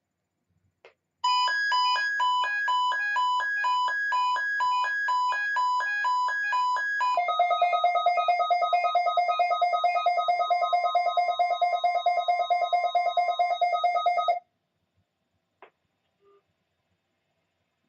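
Weather radio alert alarm beeping: about six seconds of beeps alternating between two pitches, about two a second, then about seven seconds of a faster-pulsing lower beep over a faint steady warning tone. It cuts off suddenly, and there is a click just before it and another shortly after.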